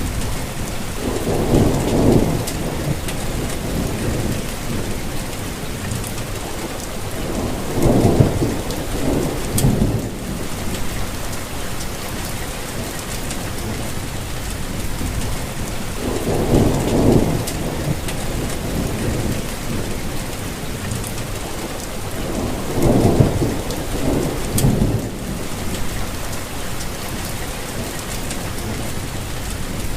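Steady rainfall, with low rolling rumbles of thunder swelling up four times, several seconds apart.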